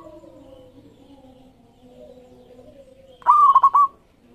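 Zebra doves (perkutut) calling. One loud phrase comes about three seconds in: a rising note, then a quick run of three or four short notes. Fainter, lower drawn-out calls run underneath.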